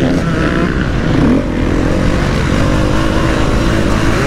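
KTM 250 SX-F four-stroke single-cylinder motocross engine running under throttle while being ridden, its pitch rising and falling with the throttle, with a clear rise about a second in.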